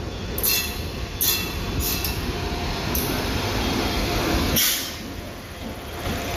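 Indian Railways WAP-7 electric locomotive and its coaches rolling past as the train arrives, with a continuous rumble of wheels on the rails. Sharp surges of noise come at irregular intervals of about a second, the loudest about four and a half seconds in.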